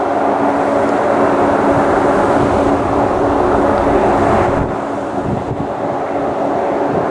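Airliner landing: a steady rushing engine noise with a constant two-note hum. The rush eases about four and a half seconds in.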